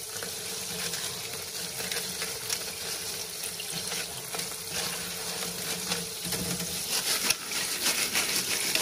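Tap water running and splashing through a stainless mesh strainer of crawfish as they are rinsed by hand, with light knocks and rustles of shells that get busier and a little louder near the end as the strainer is moved.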